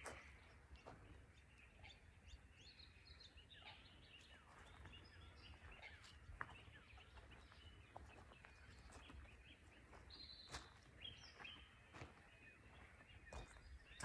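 Faint chorus of small birds chirping in the park, many short calls scattered throughout, over a steady low rumble.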